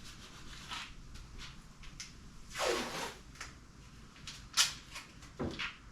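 Handling noises of the louvre being moved around at the car: scattered light clicks, a short scraping rush about two and a half seconds in, then a sharp knock a little before the end, with a duller knock after it.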